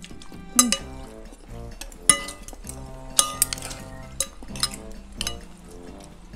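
Metal spoons and forks clinking against ceramic bowls while eating noodles, several sharp clinks at irregular moments, the loudest about half a second and two seconds in. Background music plays underneath.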